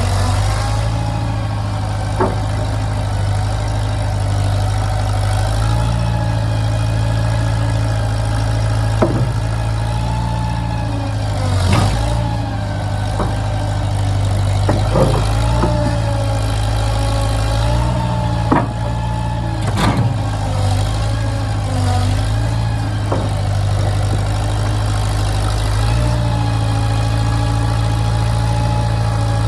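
An engine running steadily near idle, its speed shifting a little every few seconds, with a scattering of short sharp knocks or clanks over it.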